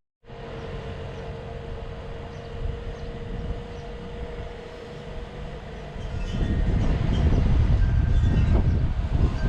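A vehicle running, with a steady whine over a low rumble. About six seconds in, a much louder, heavier low rumble takes over.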